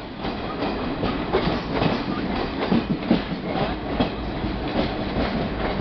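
Wheels of a moving express passenger train clattering over rail joints and yard points as it runs through a station yard: a run of irregular sharp knocks over a steady rolling rumble.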